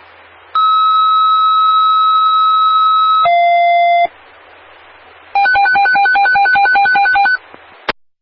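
Scanner radio picking up a fire dispatch two-tone page: after a faint squelch hiss, a steady high tone holds for nearly three seconds, then drops to a lower tone for under a second. About a second later comes a fast even beeping alert tone for about two seconds, and the transmission ends with a squelch click.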